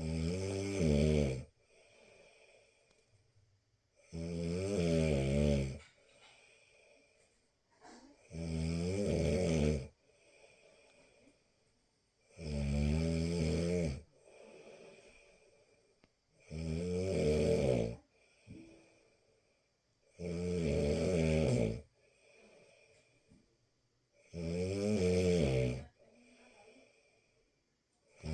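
Snoring in a steady rhythm: seven snores about four seconds apart, each lasting about a second and a half, with faint breaths out between them.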